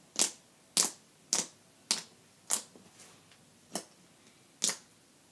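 Slime being pressed and worked by hand, giving sharp clicking pops as air pockets burst: seven clicks, roughly one every half second, with a short pause about halfway through.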